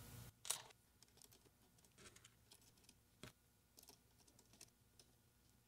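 Near silence with a few faint, scattered clicks of small screws being turned by hand to fasten a gimbal control board onto its standoffs.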